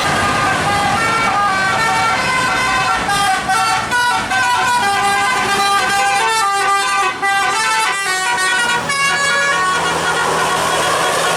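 Telolet bus horn, a multi-tone electric air horn, playing a fast tune of short stepped notes that change pitch several times a second.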